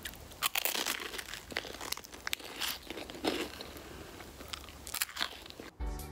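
A chocolate bar being bitten and chewed close to the microphone: quick, irregular crunches along with the crackle of its foil wrapper. Music comes in near the end.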